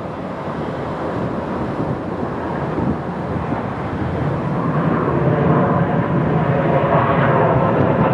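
Jet engines of a twin-jet airliner with tail-mounted engines rolling along the runway: a steady rushing engine noise that grows louder about halfway through.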